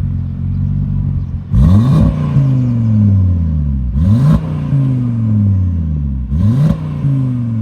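Audi RS3's turbocharged 2.5-litre five-cylinder running through catless downpipes and a valved race exhaust, its engine note jumping sharply in pitch three times, about every two and a half seconds, and sagging slowly in between.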